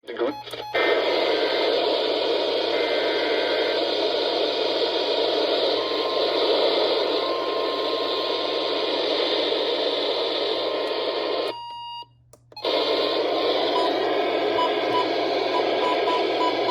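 Radio static: a steady rush of hiss from a radio receiver, which cuts out for about a second around twelve seconds in. Faint short beeps run under the hiss near the end.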